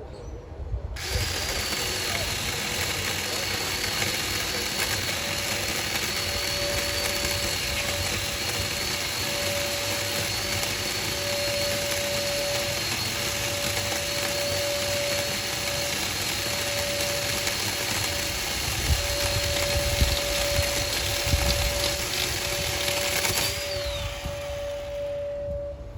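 Ryobi 18-volt 10-inch battery mini chainsaw starting up about a second in and running at steady full speed with a high whine while cutting through a dead stick. There are louder knocks a few seconds before the end, then the motor winds down and stops.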